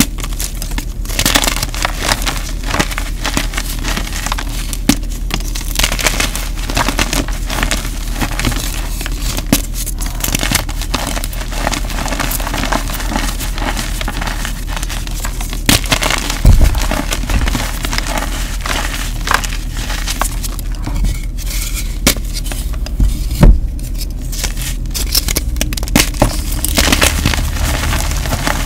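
Hands squeezing and crumbling blocks of gym chalk, a continuous dry crunching and crackling as the chalk breaks into powder, with a few louder knocks along the way.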